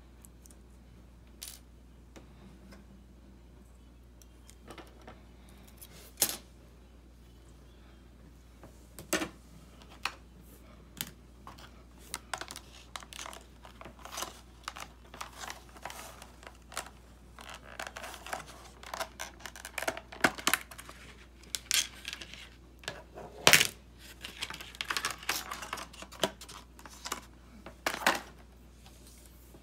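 Scattered small clicks and taps of tweezers and phone parts on a wooden table, with a few sharper knocks. Through the second half there is denser crinkling and rustling from the clear plastic wrapping on the replacement screen, mixed with more taps.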